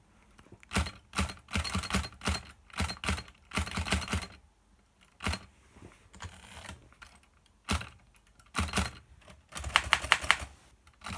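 Typing on a 1932 Underwood Noiseless Portable typewriter: key strikes in short runs, with a pause in the middle and a quick run of loud clicks near the end.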